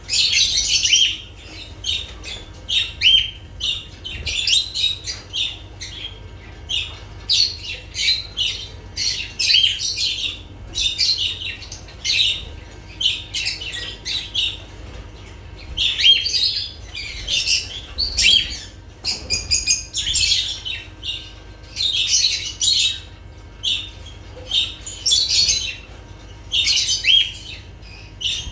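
Lovebirds chattering: a continuous run of short, shrill chirps and squawks, one after another with brief gaps, over a low steady hum.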